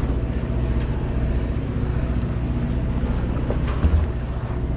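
A party boat's engine running steadily, a constant low rumble, with wind on the microphone. A brief low thump comes about four seconds in.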